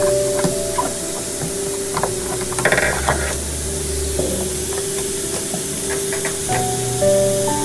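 Pneumatic drill running with a steady hiss of exhaust air and a held whine, drilling through aluminium aircraft skin, with a few short metallic clicks. The sound deepens and grows louder from about three seconds in to about five seconds in.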